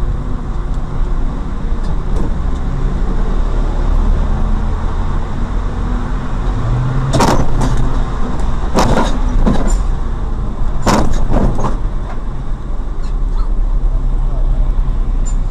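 A motor vehicle's engine running steadily with a low rumble. Several sharp knocks or bangs come in three quick clusters around the middle.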